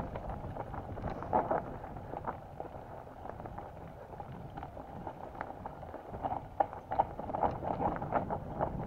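Mountain bike rolling downhill over a rocky dirt trail: tyres crunching over stones and roots, with rattling clicks from the bike that come thicker about six seconds in, and wind on the microphone.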